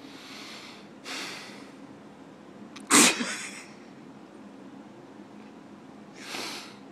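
Two soft breaths close by, then a single loud sneeze about three seconds in, and one more breath near the end.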